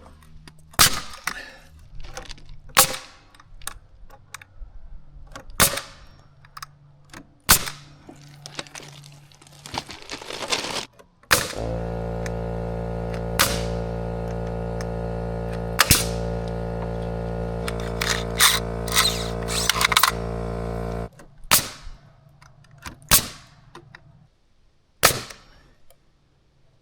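Nail gun firing a dozen or so sharp, irregularly spaced shots, driving nails into framing lumber. For about nine seconds in the middle a steady motor hum comes on and then cuts off abruptly, with shots still firing over it.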